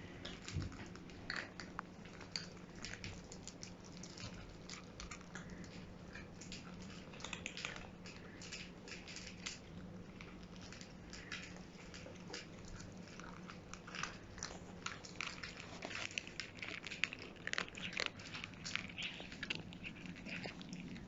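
Cats crunching dry food: many quick, irregular crunches and clicks, thicker toward the end, over a steady low hum.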